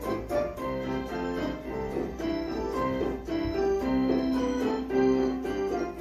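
Keyboard music: held chords under a moving melody line, with a piano and organ-like sound.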